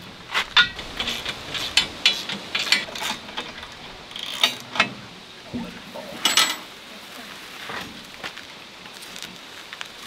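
Steel parts of a Woodland Mills HM126 bandsaw sawmill clicking and clanking as they are handled and fitted together during assembly. The sharpest clank comes about six seconds in, and the clicks thin out over the last few seconds.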